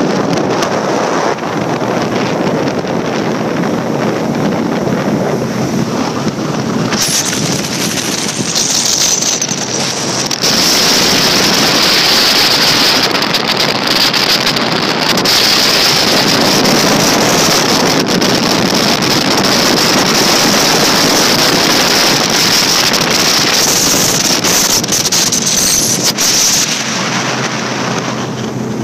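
Skeeter ZX20 bass boat running fast on its 250 hp outboard: engine noise and rushing water, heavily buffeted by wind on the microphone. It grows louder about a third of the way in and eases near the end.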